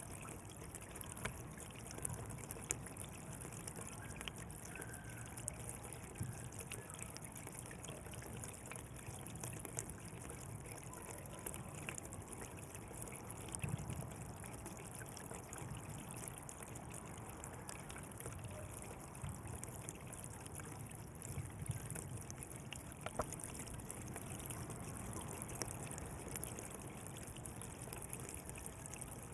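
Water flowing and trickling in a channel, a steady wash with small splashes and gurgles.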